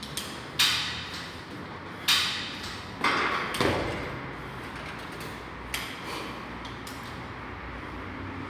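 Steel pull-up rig clanking as a man swings through toes-to-bar: sharp metallic knocks about a second and a half apart, then a heavier thud about three and a half seconds in as he drops to the rubber floor. Two fainter knocks follow a little later.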